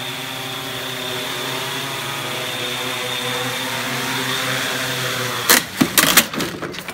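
Yuneec Typhoon Q500 quadcopter's rotors humming steadily, growing slightly louder as it comes down close. About five and a half seconds in there is a quick cluster of loud clattering strikes as its propellers hit the railing and deck and break, and the rotor hum stops.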